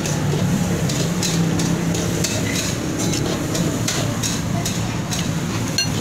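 Dishes and utensils clattering over the steady din of an eatery: short sharp clinks and knocks come about twice a second, with a ringing clink near the end.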